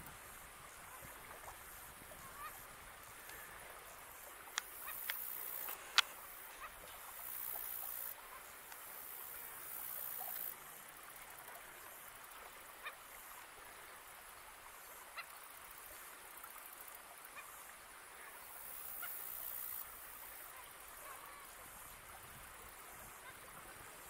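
Quiet wetland ambience: high-pitched buzzing that comes and goes in stretches of a second or two, faint animal calls, and a few sharp clicks, the loudest about six seconds in.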